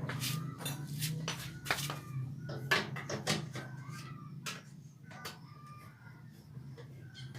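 Scattered sharp clicks and knocks with short clucking calls of chickens over a faint low steady hum, dying down near the end.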